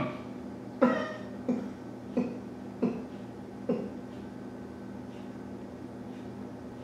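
A man's stifled laughter: five short, breathy bursts, each falling in pitch, that die away over the first four seconds, over a steady low hum.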